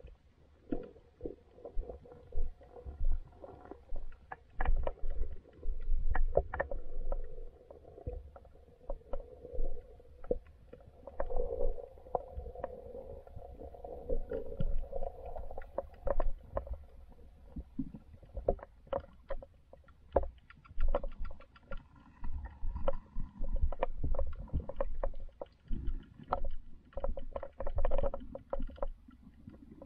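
Muffled underwater sound of river current heard through a submerged action camera: a steady low rumble with many irregular clicks and knocks.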